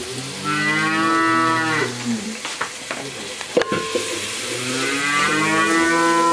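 A cow mooing twice, two long drawn-out calls, with a few sharp clicks between them.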